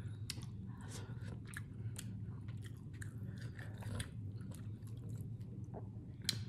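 A person chewing food close to the microphone, with many small wet smacks and clicks of the mouth and a sharper click near the end, over a steady low hum.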